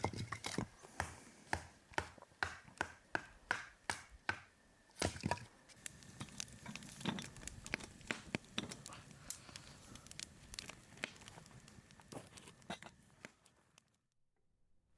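A run of sharp knocks, about two or three a second for the first five seconds, then scattered more sparsely, stopping abruptly near the end.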